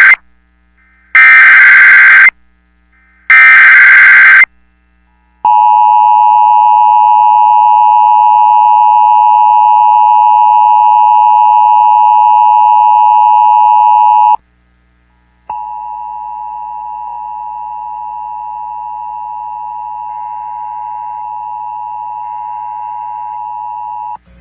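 Emergency Alert System tones opening a new warning. First come three short, loud bursts of the digital SAME header. Then the two-tone EAS attention signal holds steady for about nine seconds, and after a one-second gap a quieter single steady tone, the weather-radio alert tone, sounds for about nine seconds.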